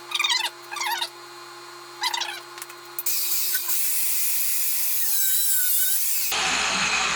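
Power tool working steel: three short scrapes, then about three seconds of loud, steady hiss that stops abruptly.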